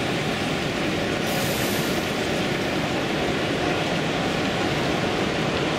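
Model train running past on a layout, a steady rail running noise, over the general noise of a busy exhibition hall.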